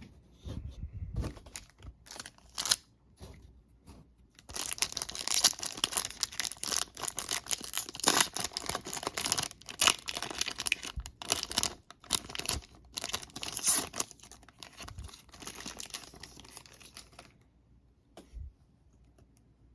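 Foil wrapper of a Panini Donruss football card retail pack being crinkled and torn open: a few light handling clicks, then a dense crackle of crinkling plastic foil from about four seconds in until a few seconds before the end.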